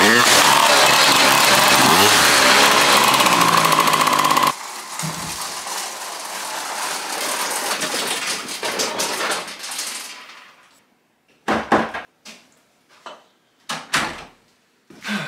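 Homemade toy tractor's two-stroke engine running as it is driven, the revs rising and falling without revving all the way out: it is making little power, which the builder blames on an exhaust pipe made too short. About four and a half seconds in the engine sound cuts off abruptly, leaving a quieter rolling noise that fades away. Then come a few sharp knocks and thumps in a small room.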